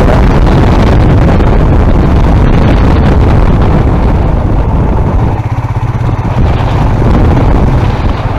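Motorcycle on the move, with its engine running and a dense rush of riding wind on the microphone. The noise eases for a moment a little past halfway.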